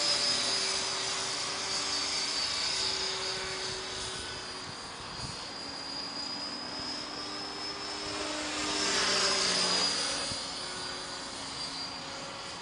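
Align T-Rex 500 electric RC helicopter in flight: a steady high whine from its motor and rotor head over a lower drone of the blades. It grows louder as the helicopter passes closer about nine seconds in, then fades a little.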